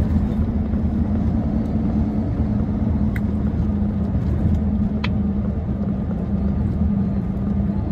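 Steady low drone of a large dump truck's diesel engine and road noise inside the cab while driving, with a constant hum, and two faint clicks about three and five seconds in.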